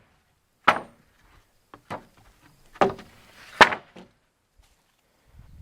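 Several sharp wooden knocks and clacks as sawn boards are set down and stacked, the loudest about three and a half seconds in.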